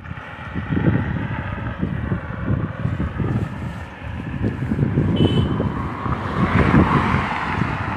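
Wind buffeting the microphone of a camera on a moving bicycle, a gusty low rumble that rises into a broader rush about six to seven seconds in.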